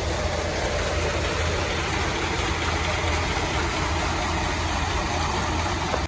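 Combine harvester running steadily while its unloading auger empties the grain tank, pouring threshed paddy into a tractor trolley: a dense, even machine noise over a deep engine hum.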